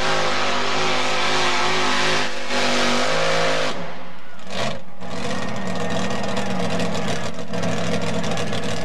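Mini pulling tractor's engine running at full throttle while dragging a weight-transfer sled. About four seconds in the revs drop sharply and swing, then the engine runs on at a lower, steadier pitch as the tractor bogs down under the sled's load.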